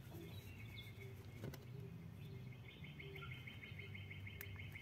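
A bird chirping in the background: a rapid run of chirps begins a little before halfway, over a faint low steady hum. Two soft clicks are heard, one about a third of the way in and one near the end.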